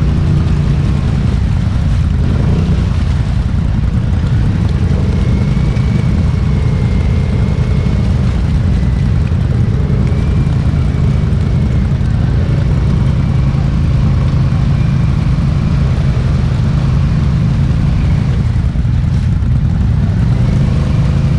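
ATV engine running steadily under load at low, even wheel speed as the quad crawls through a deep mud hole.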